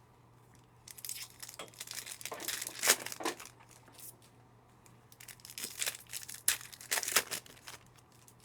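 Wrappers on a Panini Optic football card hobby box and its packs being torn open and crinkled, in two spells of irregular crackling.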